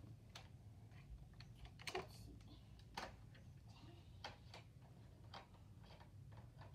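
Near silence: a low room hum with about eight faint clicks and taps at irregular intervals.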